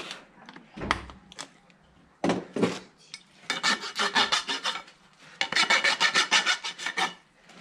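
Farrier's hoof rasp filing a horse's hoof wall: a few separate strokes, then two quick runs of rapid back-and-forth rasping in the second half.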